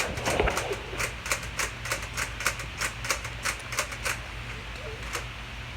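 A quick run of sharp clicks, about three a second for about four seconds, then one more near the end, as Nerf blasters and darts are handled while getting ready.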